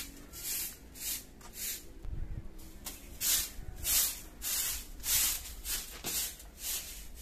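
Short grass hand broom sweeping a bare earth courtyard: quick scratchy swishes about two a second, with a short pause about two seconds in.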